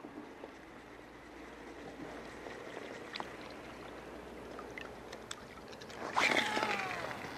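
Lake water lapping and gurgling at a camera held right at the surface, with small scattered ticks. About six seconds in comes a louder sound of about a second with gliding pitch.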